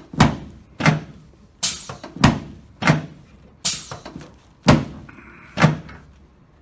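A quick series of eight sharp thuds, about one every three-quarters of a second, from chiropractic thrusts on a patient's back against the adjusting table.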